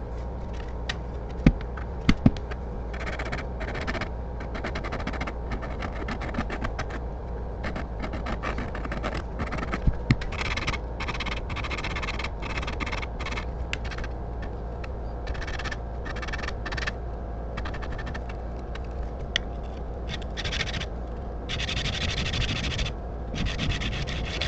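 Steel blade edge rubbed back and forth by hand on a sharpening plate: repeated short stroke sounds, irregular in length and spacing.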